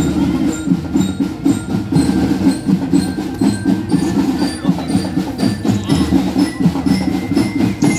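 Parade music with fast, busy percussion: steady rapid drum strikes and knocking wood-block-like hits, with some ringing pitched tones above.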